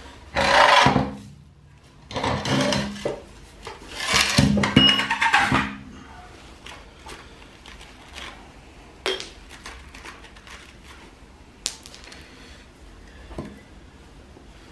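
Chisel scraping and chipping at the hardened refractory bottom of a homemade furnace, knocking down a humped spot so a crucible can sit level. Three rough bursts of scraping in the first six seconds, then a few light taps and clicks.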